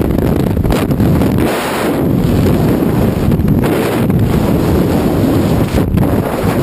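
Loud rushing wind buffeting the camera's microphone in a tandem skydive freefall, a steady dense roar.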